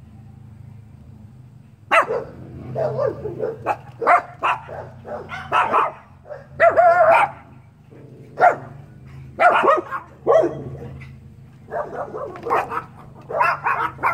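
Dogs barking: short, high-pitched barks in quick runs with brief pauses, starting about two seconds in. A steady low hum sits underneath throughout.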